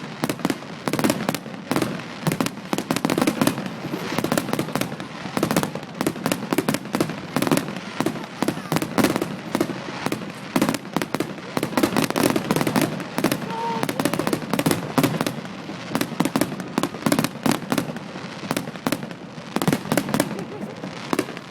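Aerial fireworks display: a dense, continuous barrage of bangs and crackles, several per second, with a rumble underneath.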